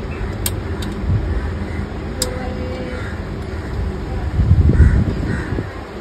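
Sharp clicks and low rumbling handling noise as a fan blade is worked onto an air-conditioner outdoor-unit motor, with a bird cawing a few times in the second half.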